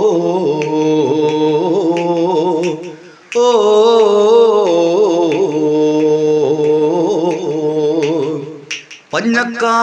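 Music: a singer holding a long sung vowel, 'ō', with vibrato, in two long notes with a short break about three seconds in. The next sung line begins near the end.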